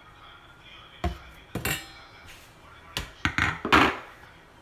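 Kitchen utensils knocking and clinking against the rice cooker's pot: a sharp knock about a second in, another about half a second later, then a quick cluster of knocks ending in a short rough scrape, the loudest of them, near the end.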